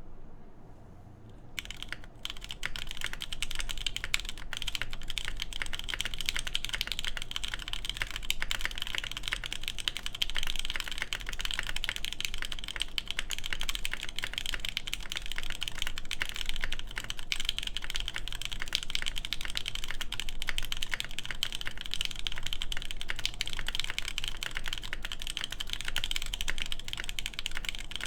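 Continuous rapid typing on an AKB Petrichor mechanical keyboard with lubed Durock Lavender switches, an FR4 plate and DCS keycaps; dense keystroke clicks begin about a second and a half in.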